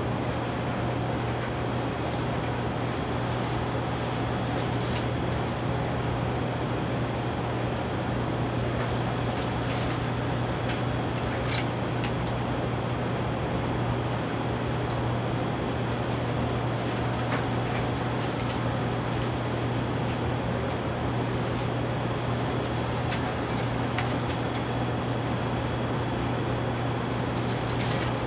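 A steady mechanical hum with an even hiss, like a fan or air-conditioning unit running, unchanged throughout. A few faint light clicks as the printer's wiring and plastic spiral cable wrap are handled.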